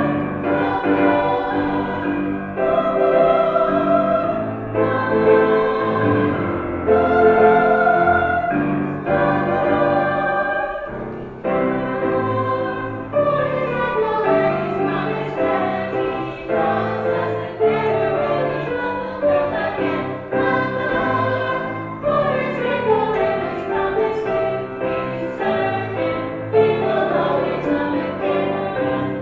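Children's choir singing a song in sustained, phrased notes, with low instrumental accompaniment beneath the voices.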